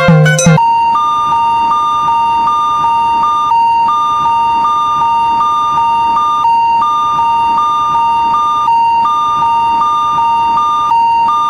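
Japanese railroad crossing warning signal: an electronic two-tone alarm alternating a higher and a lower beep, about three beeps a second, with a brief break every couple of seconds.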